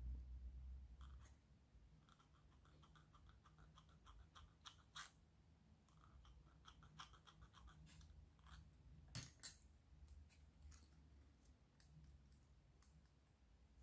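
Faint rasping of a needle file on a small 3D-printed plastic part, in runs of quick short strokes, with light clicks of plastic pieces and one sharper click about nine seconds in.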